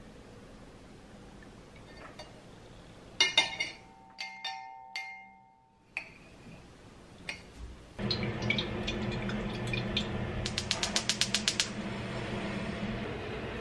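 A metal spoon clinks against a glass measuring jug several times with a brief ring as sauce is stirred. From about eight seconds in a steady rushing noise begins, and a little later comes a quick, even run of about ten ticks, typical of a gas hob's spark igniter, before the burner burns.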